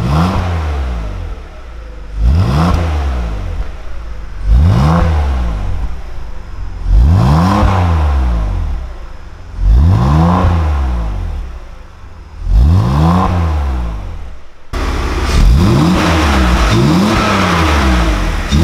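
BMW E46 325ti Compact's straight-six revved in repeated throttle blips through a dual-tip exhaust whose rear silencer has been opened, cleaned out and refitted. Each blip rises and falls in pitch, about every two and a half seconds. About three-quarters of the way through the sound changes abruptly and the blips come quicker and closer together.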